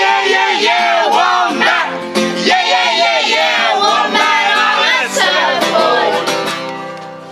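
A group of schoolchildren singing the final chorus of a song loudly over guitar accompaniment; about five and a half seconds in the voices stop and the last chord is held, fading away.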